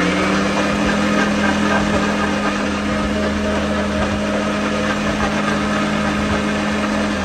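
Electric mixer-grinder running at a steady speed, its motor whining loudly over the churn of a thick milkshake mix of ice cream and crushed Oreos in the jar. The motor winds down at the very end, its pitch falling.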